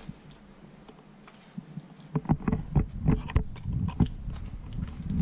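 Quiet at first, then from about two seconds in a run of clicks, rustles and low bumps: a fork scraping and picking cooked mackerel off crumpled aluminium foil.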